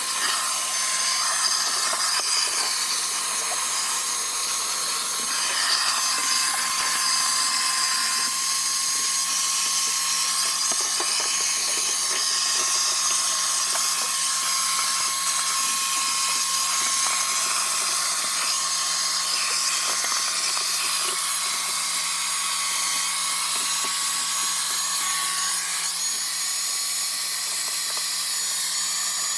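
Wet/dry shop vac running steadily with a high whine and a rush of sucked air. A held whine tone in it drops out about three-quarters of the way through.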